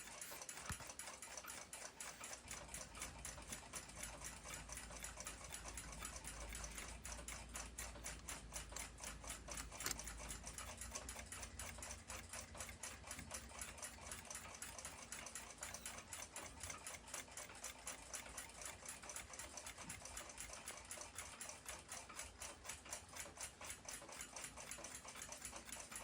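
Fast, even mechanical ticking, like a clock, runs steadily throughout, with a low hum underneath during the first half.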